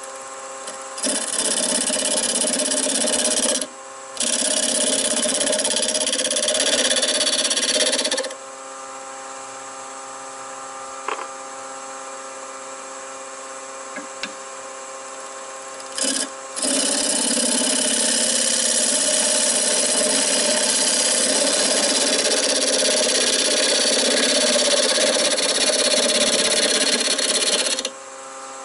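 Nova wood lathe running with a steady motor hum while a bedan bores out the centre hole of a spinning wooden block, the wood shaving away with a loud scraping hiss. The cutting runs for about seven seconds from a second in, with a brief break, then stops for several seconds with only the lathe humming, then picks up again about halfway through and runs until just before the end.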